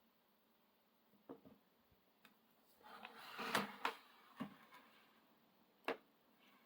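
Faint handling noise from the Dell Latitude 5420 laptop being moved and tilted on a desk: a few light clicks and knocks, with a short rubbing scrape around the middle.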